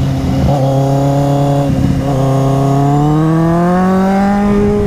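Kawasaki Z800e's inline-four engine pulling the bike along, heard from the rider's position. Its note breaks briefly twice in the first two seconds, then climbs steadily in pitch as the bike accelerates.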